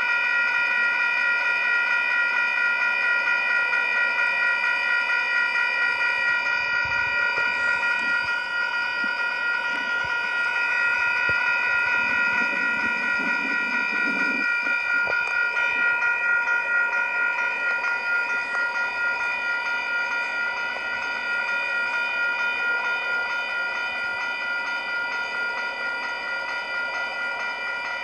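Railroad crossing warning bell ringing rapidly and steadily at an activated crossing with its gates down. The uploader describes the crossing as malfunctioning over and over. A lower sound swells briefly about halfway through.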